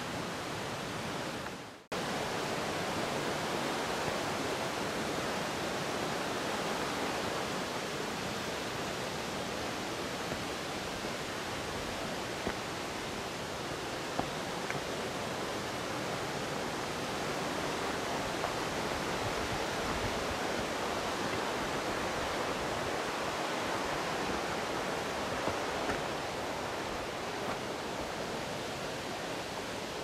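Steady rush of falling water from a nearby waterfall, an even unbroken noise. It drops out for a moment just before two seconds in, and a few faint ticks sit on top of it.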